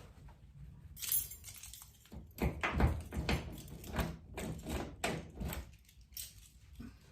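A short hiss of PB Blaster penetrating oil sprayed into the door lock about a second in. This is followed by a run of clicks and rattles as a key is worked back and forth in the jammed manual door lock cylinder of a 1995 Nissan D21 pickup.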